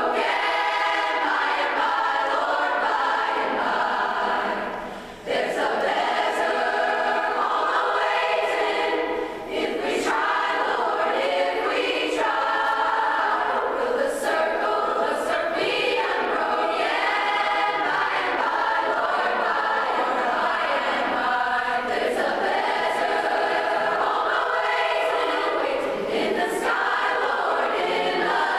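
Large mixed choir singing in many voices. The sound breaks off briefly between phrases about five seconds in, and again more briefly about nine seconds in.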